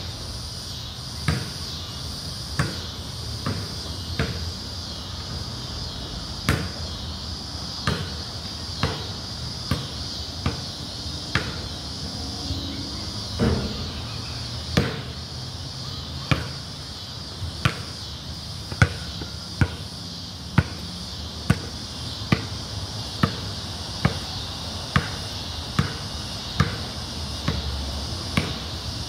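Basketball bounced on a concrete court in a steady dribble, one bounce every second or so, a little faster in the second half. A steady high insect drone runs underneath.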